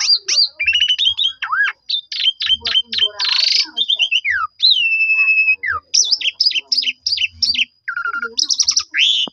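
Javan pied starling (jalak suren) singing a long, varied song of quick whistles, chirps and sliding notes, with a long falling whistle about halfway through. A faint steady high tone runs behind it.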